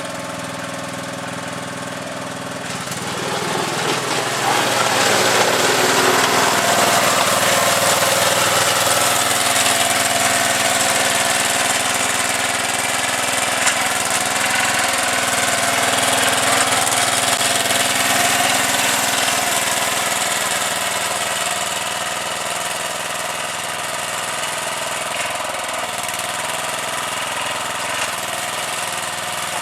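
Small gasoline engine running steadily, growing louder about three seconds in as a broad rushing hiss builds up, then easing off a little after about twenty seconds.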